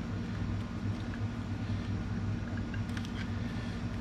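Steady low hum, with a few faint light clicks of a flathead screwdriver working against a motorcycle's front brake caliper as it pushes the piston back.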